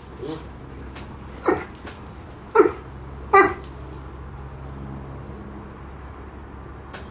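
A dog barking: one soft bark at the start, then three loud single barks about a second apart.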